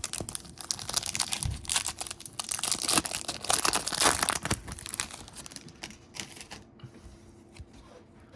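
Foil wrapper of a Topps Stadium Club baseball card pack crinkling and tearing as it is opened, loudest a few seconds in, then dying down to quieter rustling.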